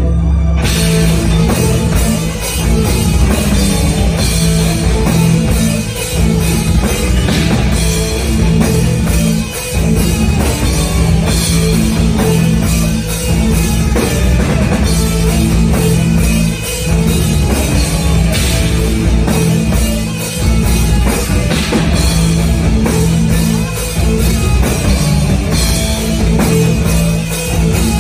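Black metal band playing live at full volume: distorted electric guitars, bass and a drum kit in a dense, unbroken wall of sound. The full band comes in about half a second in after a quieter guitar passage.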